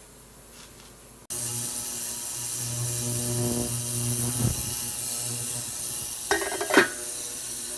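Ultrasonic cleaner running with rifle parts in its bath: a steady electrical hum with a hiss over it, starting suddenly about a second in. A brief higher-pitched sound comes near the end.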